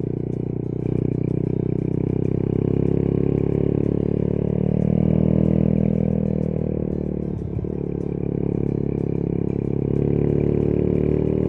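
Custom Honda Monkey's small single-cylinder four-stroke engine running under load, pulling uphill; its note rises and falls, with a brief dip about seven and a half seconds in.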